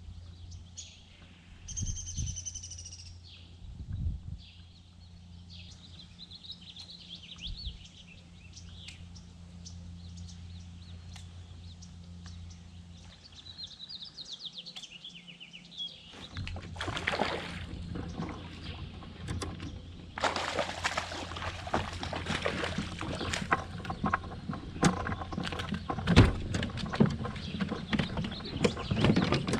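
Wild birds calling over a steady low hum, one with a loud, ringing call about two seconds in. From about halfway, a long run of dense splashing, clicking and rattling as a hooked bass is brought to the side of the kayak, loudest near the end.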